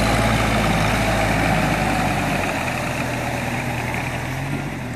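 Farm tractor's engine running steadily. Its deep note shifts and eases a little about halfway through.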